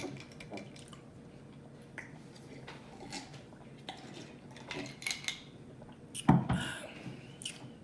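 Close-up eating noises: scattered mouth clicks and chewing, with one louder noise about six seconds in.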